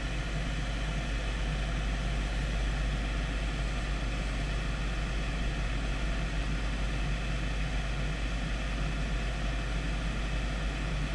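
Six-inch inline duct fan running steadily: an even rushing whir over a low motor hum.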